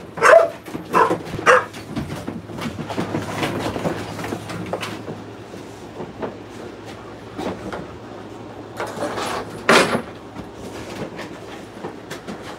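A dog barking in a kennel: three quick barks in the first second and a half, then a single loud bark about ten seconds in.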